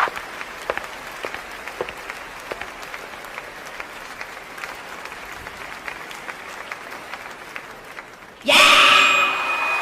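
Audience applauding, with separate close claps standing out over a steady patter of clapping. Near the end a much louder sound with several held tones cuts in suddenly.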